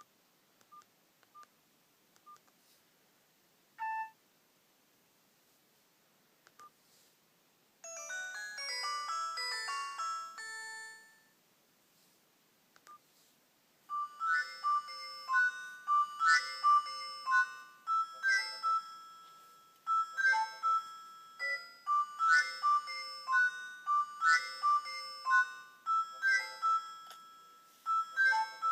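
Ringtones from a Nokia 105 (2017) phone's loudspeaker. It starts with a few faint keypad beeps and a single short beep. About eight seconds in comes a short burst of synthesized melody lasting about three seconds. From about fourteen seconds in, an electronic ringtone melody plays, repeating the same phrase.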